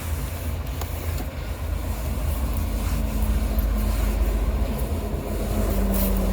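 Vacuum cleaner running while cleaning out a car's interior: a steady low rumble, with a low hum joining about two seconds in and a few light clicks.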